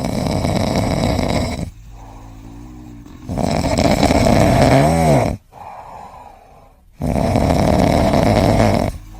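A sleeping pet snoring loudly: three long, rasping snores about every three and a half seconds, with quieter wheezy, whistling breaths between them.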